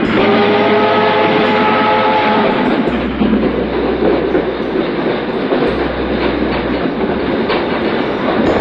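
Train horn sounding one chord for about two and a half seconds, over the steady noise of a train running along the tracks.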